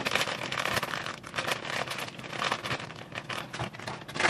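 Irregular crackling and scraping as food is pressed flat in a pan.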